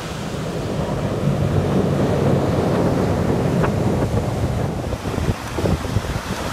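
Wind buffeting the microphone over breaking surf, with the low drone of two Marine CH-53 Sea Stallion helicopters flying past offshore, growing slightly louder during the first half.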